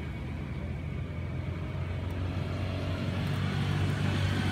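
Low, steady rumble of a motor vehicle engine running, growing louder near the end.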